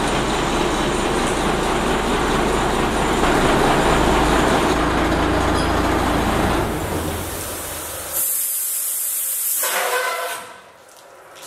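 International S1854 fire truck's engine running with a deep rumble and broad rushing noise, swelling louder for a moment before dropping away. A loud, high hiss of escaping air follows, lasting about a second and a half.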